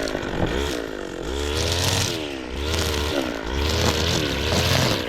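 String trimmer's small engine revving up and down as it cuts weeds near the ground, its pitch rising and falling about once a second.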